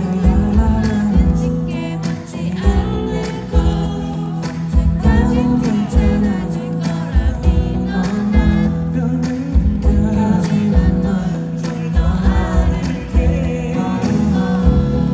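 Male singer performing a pop song live over band accompaniment with a steady low drum beat, heard through a concert sound system.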